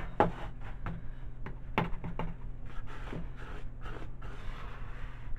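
Gloved hands tipping and scraping clumpy oil-coated baking soda out of a plastic mixing bowl onto a metal baking tray: a few light knocks in the first half, then soft scraping and rubbing.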